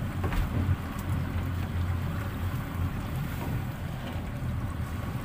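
Twin Yamaha 250 outboard motors idling with a steady low hum, the boat still moored.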